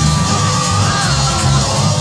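Loud music with a heavy, repeating bass beat, with a crowd shouting over it.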